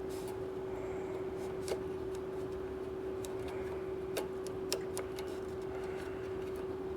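Small metal carburetor parts being handled and fitted, giving a few sharp light clicks over a steady hum.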